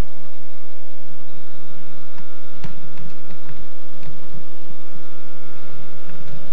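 Steady electrical hum made of several fixed tones under a low rumble, with a few faint clicks about three seconds in.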